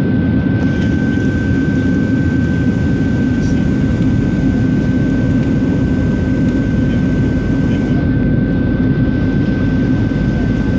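Steady cabin noise inside a Boeing 737-700 in flight: the rush of air and the drone of its CFM56-7B turbofan engines, with a thin, steady high whine on top.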